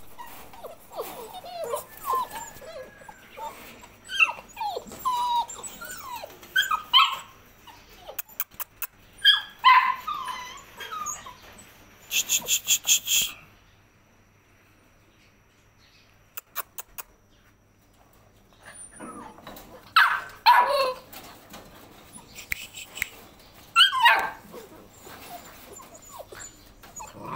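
Yellow Labrador Retriever puppies whining and yipping, short high gliding calls from several pups, with sharper yelps about two-thirds of the way through. A brief rapid run of high-pitched pulses comes about halfway through, followed by a few quieter seconds.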